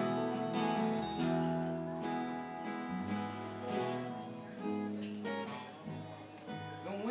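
Instrumental passage of a live acoustic band: a steel-string acoustic guitar strums chords over sustained bass guitar notes, with no singing.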